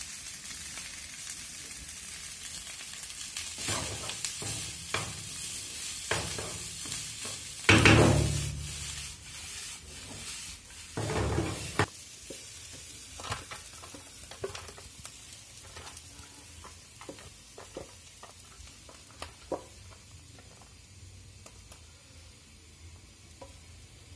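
Egg fried rice sizzling in a frying pan while it is stirred and tossed with a wooden spatula, with scrapes and knocks against the pan; the loudest come about eight and eleven seconds in. After that the sizzle drops away, leaving scattered light scrapes and clicks.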